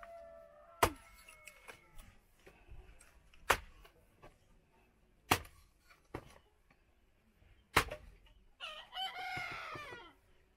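Firewood sticks being split with a long-handled chopping tool: four sharp chopping blows about two seconds apart. A rooster crows once near the end.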